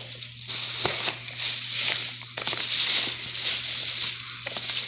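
Fireworks packaging being handled: irregular rustling and crinkling with a few sharp clicks.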